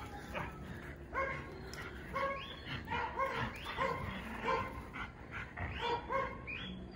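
Pit bull giving a series of short, high-pitched yips, about two a second, while playing tug-of-war with a rope.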